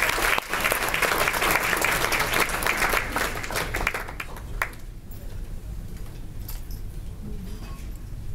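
Audience applauding, dying away about four to five seconds in, leaving a low steady room background.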